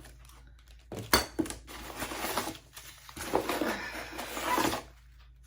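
Hands rummaging through a package: a sharp knock about a second in, then a few seconds of rustling and light clattering as items and packaging are handled.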